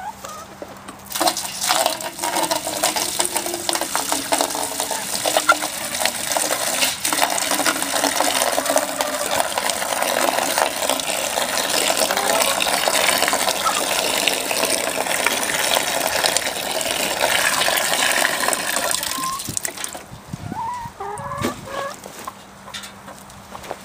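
Water pouring and splashing steadily into a galvanised poultry drinker, stopping about 19 seconds in. Hens cluck a few times after the water stops.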